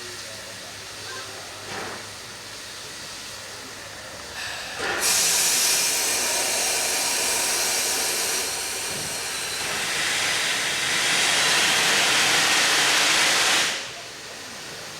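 NSW C38-class steam locomotive 3801 releasing steam: a loud hiss starts suddenly about four and a half seconds in, holds for about nine seconds, swelling a little near the end, then cuts off sharply. A fainter steady hiss from the engine runs before and after it.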